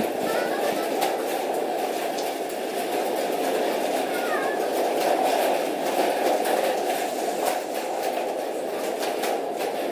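Many homemade cup friction drums at once: plastic cups with a string through the bottom, the string pulled through damp paper so the cup rasps and creaks. The result is a dense, continuous rasping din from the whole class playing together.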